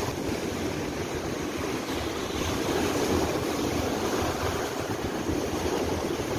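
Big wind-driven waves of Lake Baikal breaking and washing on the shore, with wind rushing over the microphone.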